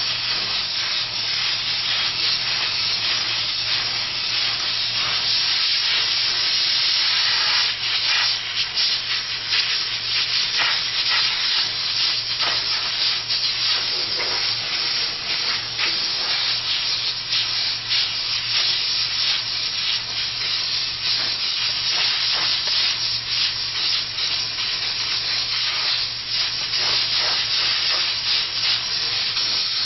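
Sargent steam cleaner's nozzle hissing steadily as it is scrubbed over a rubber flip-flop, with uneven rubbing strokes on top of the steam jet.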